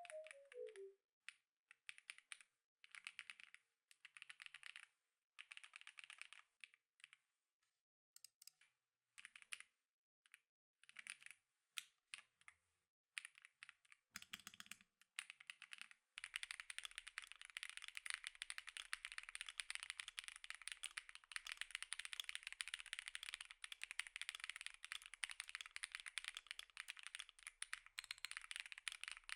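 Typing on an Epomaker Tide 65, an aluminium gasket-mount keyboard with its stock Epomaker Lemon linear switches. It starts as short bursts of keystrokes with pauses between them. There is a brief low knock a little after the middle, then steady fast typing to the end.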